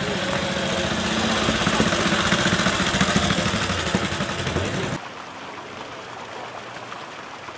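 Vintage motorcycle engine running as the bike rides slowly past, getting louder toward the middle. About five seconds in it cuts off abruptly to a much quieter steady hiss.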